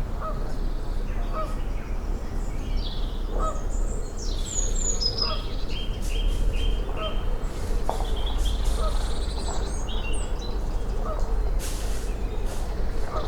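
Woodland birdsong from several birds at once: quick high phrases and trills, with a fainter repeated two-note call about once a second, over a steady low rumble. A brief rushing noise comes near the end.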